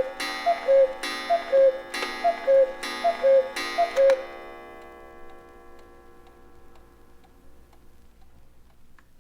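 Antique cuckoo clock striking: the cuckoo's falling two-note call repeats about five times, each call with a ringing chime strike. The calls stop about four seconds in, and the ringing fades away over the next few seconds, leaving faint ticking.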